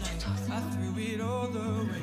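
A song playing: a singing voice with vibrato over sustained instrumental accompaniment, the bass note changing about a quarter second in.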